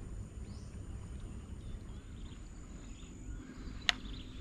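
Outdoor wetland ambience: a steady low rumble with a few faint chirps, and a single sharp click near the end.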